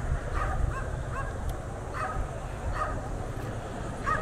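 A dog barking repeatedly, in short yaps about once a second, heard at a distance over a steady low rumble.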